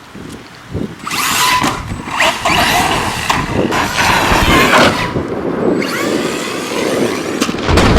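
Arrma Kraton 4S V2.5 RC truck running, its electric motor whining up and down in pitch as it accelerates and lets off, over a gritty rushing noise. A low rumble joins near the end.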